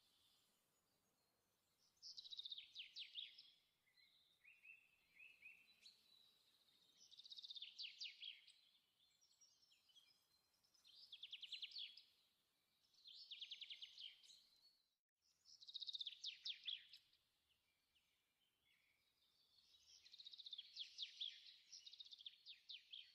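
A songbird singing faintly in the background, in six phrases of rapid high trills, each a second or two long and a few seconds apart.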